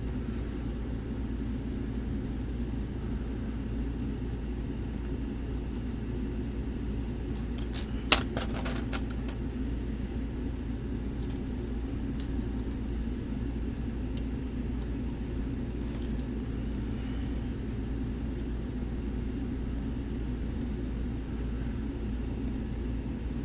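Faint metallic clicks and taps of a hook pick and tension tool working the pins of a lock, with a sharper cluster of clicks about eight seconds in and a few lighter ticks later, over a steady low hum.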